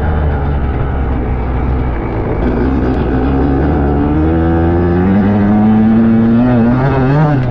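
Dirt bike engine under throttle, its pitch climbing steadily from about two seconds in as the bike accelerates, then rising and falling quickly near the end.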